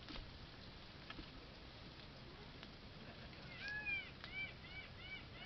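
A bird calling in a quick series of short rising-and-falling notes, about three a second, starting a little past the middle. A few faint clicks come before it.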